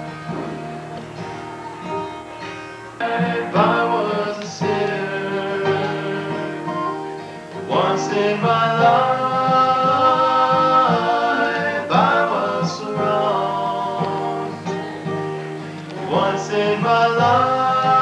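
Acoustic guitar playing, with singing that comes in about three seconds in and holds long notes.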